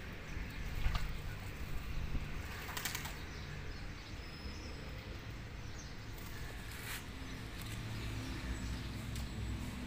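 Pigeons bathing in a shallow basin of water, splashing and flapping their wings, with a few short louder flurries of wing-beats and splashes, over a low steady rumble.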